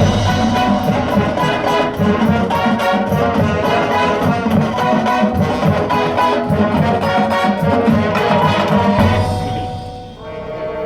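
High school band playing a loud full-ensemble passage led by brass (trombones and trumpets) over steady percussion strokes; near the end the sound falls away to softer held brass notes.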